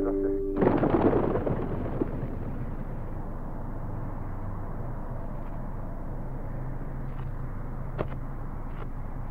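Music cuts off, and a sudden loud rumbling rush fades away over a second or two. A steady low hum follows, with a single sharp click near the end.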